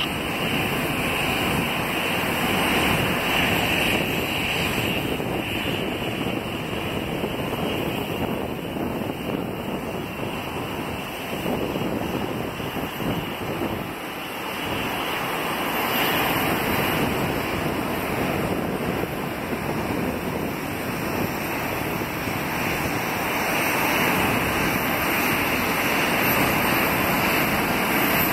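Boeing C-17 Globemaster III on final approach: the steady rushing roar of its four Pratt & Whitney F117 turbofan engines, growing louder toward the end as it closes in.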